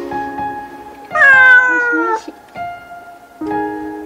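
A cat meowing once, a long call that falls in pitch, about a second in, over soft background music.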